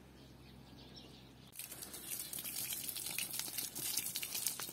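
Water from a garden hose splashing and pattering onto stones and soil, starting suddenly about a second and a half in, as the soil between freshly laid path stones is soaked so it settles.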